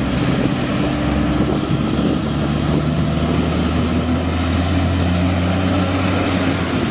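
Diesel engine of a long-nose prime mover hauling a road train, running with a steady low drone as the truck drives up the road, with a hiss of road and wind noise over it.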